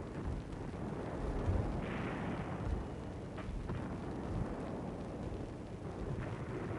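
Distant battle sound of artillery: a steady low rumble with a few dull thuds, the clearest about two and a half seconds in.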